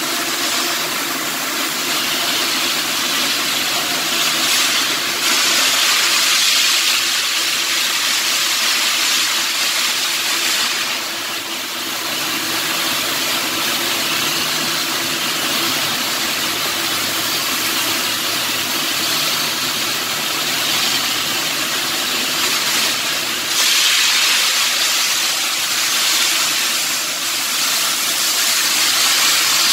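Shielded metal arc (stick) welding arc crackling and hissing steadily, a little softer briefly about eleven seconds in and stronger again near the end. A steady machine hum runs underneath.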